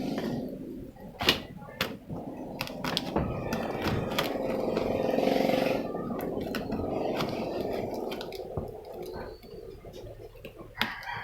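Cardboard shipping box being opened and handled by hand: steady scraping and rustling with many sharp clicks and knocks.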